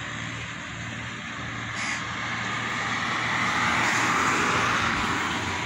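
A motor vehicle's engine running with a steady low hum, growing louder to a peak about four seconds in and then easing, like a vehicle going by.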